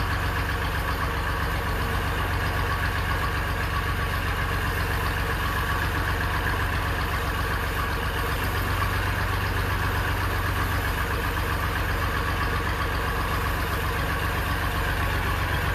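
Engine of a mini borewell drilling rig running steadily under load while the drill turns in the bore, with an even, unchanging engine beat.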